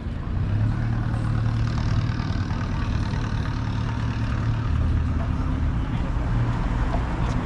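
A motor vehicle engine running close by, a steady low drone whose pitch drops a little about halfway through, over street noise.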